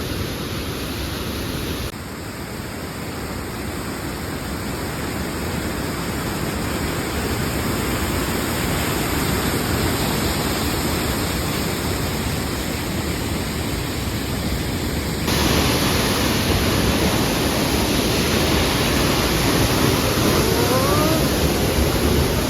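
Waterfall: a steady rush of falling water that grows gradually louder, with an abrupt jump in level about two-thirds of the way through.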